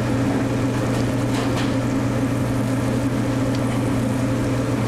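Shrimp sizzling in butter in a stainless steel frying pan over a gas burner, a steady hiss with a few faint pops about a second and a half in, under a steady low mechanical hum.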